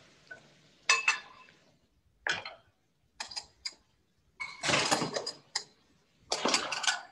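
A utensil stirring and scraping against a cooking pot of curry in short, separate bursts of scraping and clicking, the longest and loudest in the second half.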